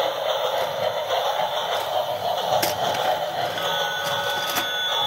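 Battery-powered toy trains running, giving off a tinny electronic tune and sounds from their small speakers. Steady electronic tones join about three and a half seconds in, with two sharp clicks in the second half.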